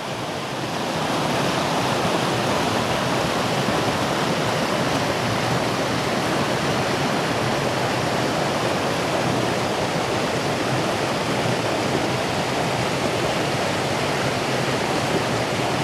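Creek water running down a bedrock slide and cascades: a steady, even rush of water that grows a little louder about a second in.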